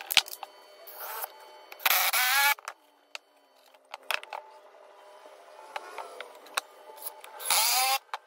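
Ryobi cordless impact driver running screws into pine in two short bursts, about two seconds in and near the end, its motor rising in pitch as each starts. Short knocks and clicks of wood and tools being handled come in between.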